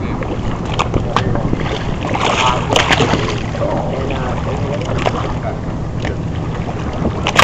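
Boat engine running steadily with wind buffeting the microphone and choppy water around the hull. Faint voices come in a couple of seconds in, and there are a few sharp knocks, the loudest near the end.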